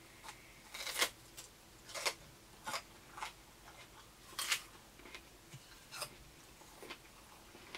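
Crisp crunching bites and chewing of raw vegetables held close to the mouth, about seven sharp crunches at uneven intervals.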